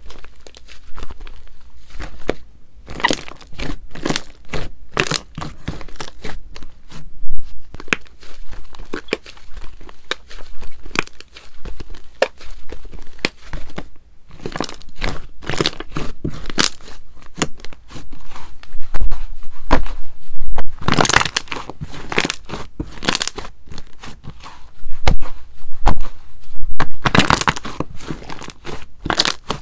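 White slime being stretched, folded and pressed flat by hand, giving dense crackling and popping as its air pockets squish. The crackles come louder and thicker about two-thirds of the way through and again near the end.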